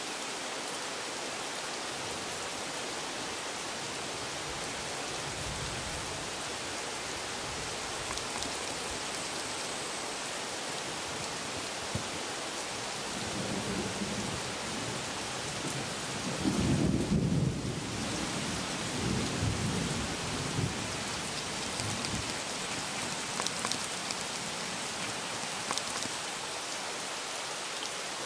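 Steady hiss of heavy rain, with low rolling thunder rumbling in a little past halfway and loudest for a couple of seconds about two-thirds through.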